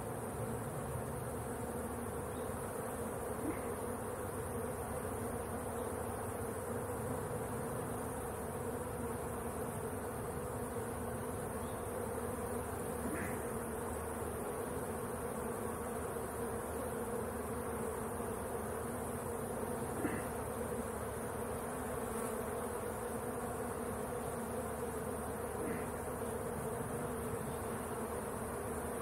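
Honeybees buzzing around an open hive in a steady, continuous hum, with a few faint knocks of wooden hive frames being handled.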